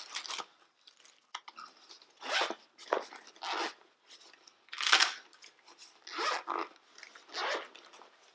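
Plastic packaging crinkling in a series of short bursts as hands unwrap and handle the light panel's mounts.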